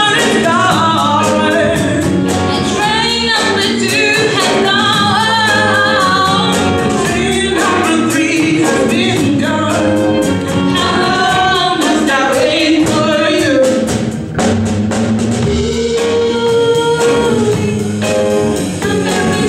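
Live music: two women singing an upbeat soul song into microphones, backed by electric guitar and a band with a steady beat.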